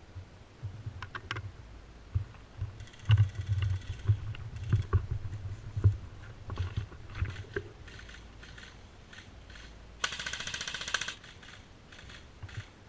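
Airsoft guns firing: scattered single shots and short volleys of sharp clicks, then a rapid full-auto burst about ten seconds in that lasts just over a second.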